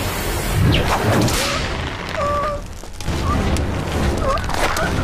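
Dramatic TV soundtrack of deep booming hits and rumble, with short wavering pitched sounds over it, during a struggle by a car.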